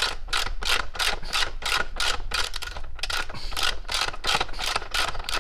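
Socket ratchet on a 14 mm socket and extension clicking quickly and evenly, about four clicks a second, as it is worked back and forth to loosen a motorcycle's muffler bolt.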